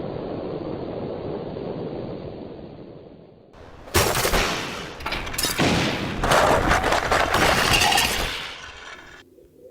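Explosion sound effects: a steady rumbling noise fades away, then a sudden loud blast about four seconds in is followed by several more blasts over the next four seconds before dying away.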